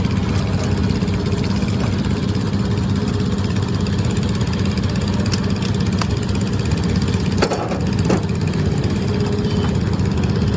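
A motor running steadily, with a few sharp clicks and knocks about two-thirds of the way through.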